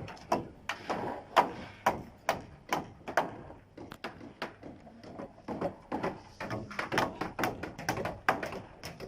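Hammering on a building site: an irregular run of sharp knocks, about two or three a second.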